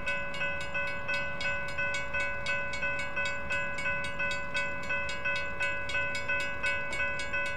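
Railroad crossing signal bells ringing in fast, even strokes: the near signal's GS Type 3 electronic bell, together with the far signal's WRRS mechanical bell.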